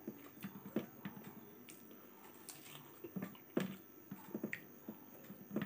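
A person chewing a mouthful of rice and pork with his mouth closed, close to the microphone, with irregular short wet clicks and smacks.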